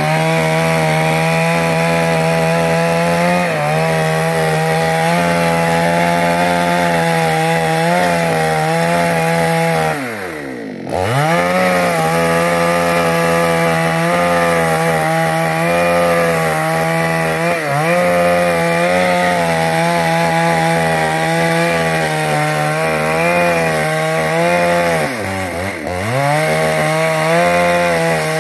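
Two-stroke chainsaw running at high speed, cutting wood lengthwise to split it. Its engine pitch dips briefly several times as the cut loads it, and about ten seconds in falls away sharply before revving back up.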